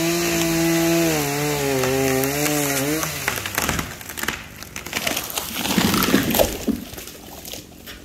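A chainsaw runs at the base of a tall tree and stops about three seconds in; the tree then cracks and crashes to the ground, with branches snapping. The crash is loudest around six seconds in.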